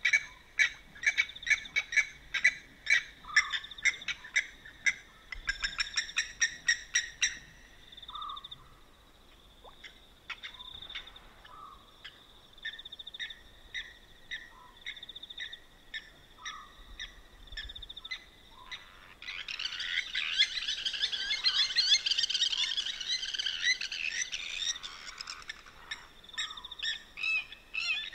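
Blacksmith lapwings (blacksmith plovers) giving their metallic 'tink' calls, like a hammer on an anvil. A quick run of sharp tinks opens the stretch, and the calls grow sparser through the middle. About twenty seconds in, a dense burst of many overlapping calls lasts several seconds, then single tinks resume near the end.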